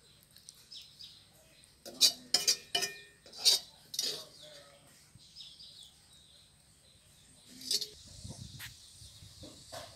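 Steady high-pitched insect chirring, with a series of sharp clinks or taps about two to four seconds in and one more near eight seconds, followed by a brief low rumble.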